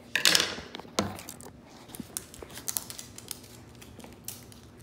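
Crackling and clicking of the plastic wrapping being peeled off an L.O.L. Surprise toy ball. A rustling burst near the start and a knock about a second in, then scattered small crackles.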